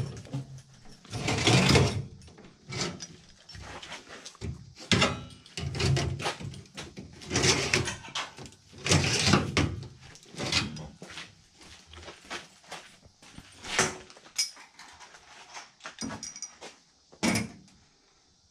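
Irregular knocks, rattles and scrapes of metal as the blower motor and its mounting bracket are handled inside a furnace's sheet-metal blower compartment.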